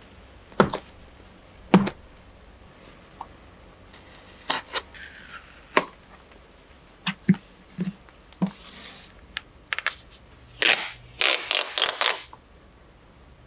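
Unboxing handling noise from a Galaxy S24 Ultra cardboard retail box: scattered light taps and clicks of the box being set down and handled, short scraping swishes of the lid and packaging sliding, and a burst of rustling near the end as the phone and its paper sleeve come out.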